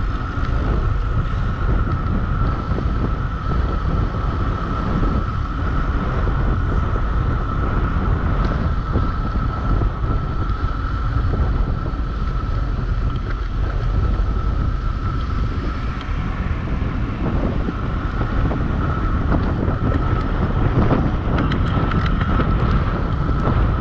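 Wind rushing and buffeting over the microphone at descending speed, a dense low rumble with a steady high-pitched tone running through it.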